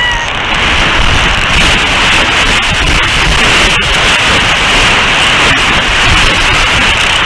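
Strong wind buffeting an outdoor camera microphone: a loud, steady rush with a few faint knocks.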